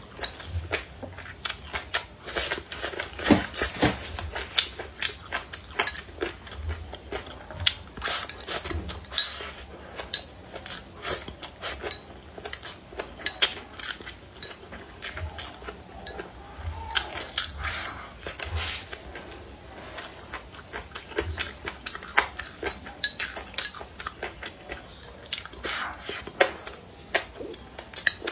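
Close-miked eating: chopsticks clicking and scraping against a ceramic bowl while a mouthful of braised pork ribs, rice and greens is chewed. The clicks are short and irregular and keep coming throughout.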